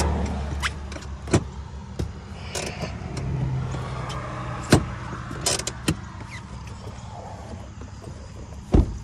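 An engine running steadily with a low hum, broken by several sharp knocks and clicks, the loudest about halfway through and another near the end.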